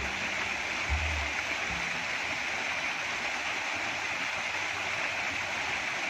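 Water spilling down a stepped cascade fountain, a steady, even rush with no change in it. A few low notes of background music sound faintly in the first two seconds.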